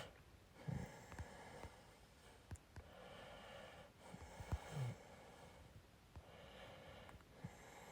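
Quiet breathing close to a phone microphone, soft hissing breaths about every two seconds, with a few faint bumps of handling.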